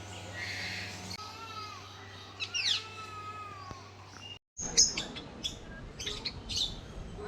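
Captive birds calling in an aviary. In the first half there are a few whistled calls that glide up and down in pitch. After a sudden cut, short high chirps come in quick succession.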